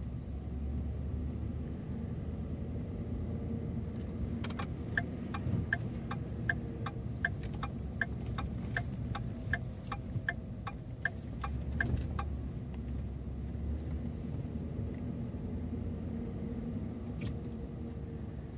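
Ford truck's turn signal clicking steadily at nearly three ticks a second for about eight seconds in the middle, over the low, steady rumble of the truck driving, heard inside the cab. One more click sounds near the end.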